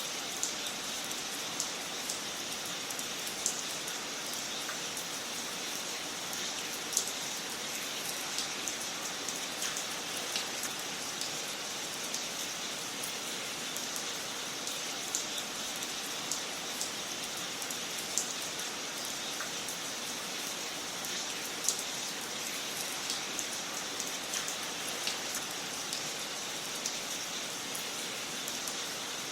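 Wood fire crackling in a fireplace: a steady hiss with scattered sharp pops and snaps at irregular intervals.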